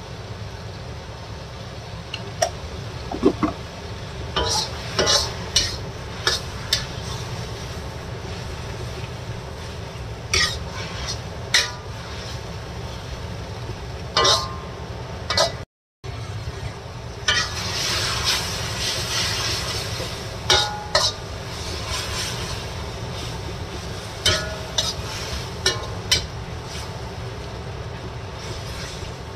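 Metal spatula scraping and clacking against a wok as water spinach and garlic are stir-fried, over a steady frying sizzle. The sizzle grows louder for a few seconds about two-thirds of the way through, and the sound cuts out for a moment about halfway.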